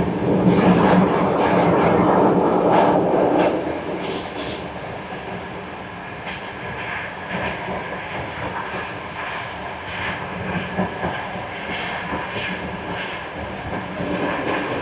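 Passenger train running along the track, with the rumble and clatter of its wheels on the rails. It is louder for the first few seconds, then settles into a steadier, quieter run.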